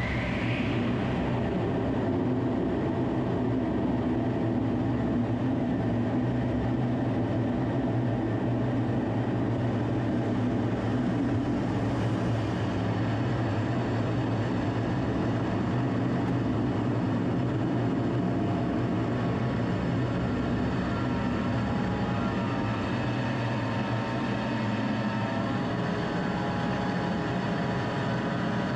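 Military jet engine heard from inside the cockpit during a takeoff roll along a highway strip and the climb away, a loud, steady drone with a low hum and some higher steady tones joining in after about twenty seconds.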